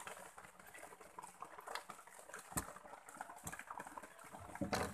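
Faint, irregular crackling and tapping as a keep net holding freshly caught giant freshwater prawns is handled close up, with two louder knocks about two and a half and four and a half seconds in.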